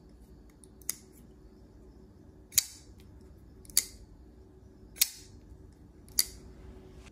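Spyderco Shaman folding knife with titanium scales being worked open and shut, its blade snapping into place with a sharp metallic click. Five clicks come roughly every second and a quarter, the first one lighter.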